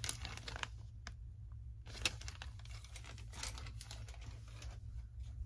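Clear plastic parts bag full of wing struts being handled, crinkling and rustling, with scattered clicks and taps, the sharpest about two seconds in.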